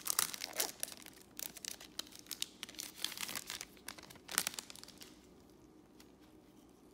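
Foil wrapper of a Panini Select baseball card pack crinkling and tearing in quick crackly bursts as the pack is opened and the cards are slid out; it stops about four and a half seconds in.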